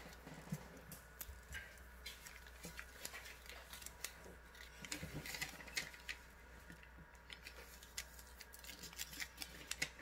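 Origami paper crinkling and rustling as it is folded and creased by hand: faint, irregular crackles and small clicks.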